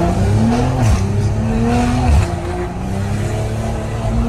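BMW M340i's turbocharged 3.0-litre straight-six with an Active Autowerke aftermarket exhaust, heard from inside the cabin under acceleration. Its pitch rises, then drops at a gear change about two seconds in, and it runs on steadily.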